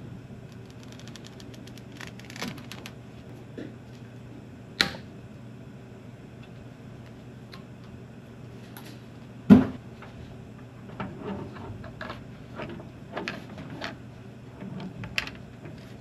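Handling noises from fitting a rubber steam hose onto a steam humidifier's sheet-metal cabinet: a quick run of small ticks, scattered clicks and knocks, and one heavy thump about halfway through. A steady low hum sounds underneath.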